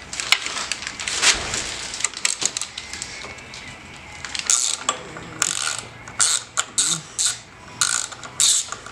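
Ratchet wrench clicking in short runs of strokes as bolts on an engine accessory bracket are loosened.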